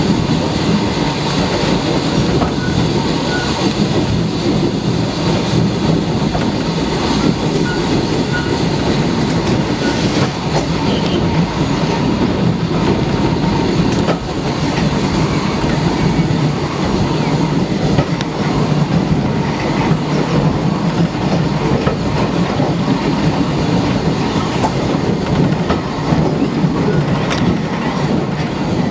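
Steam-hauled train running along the rails: a steady rumble of wheels on track with occasional clicks.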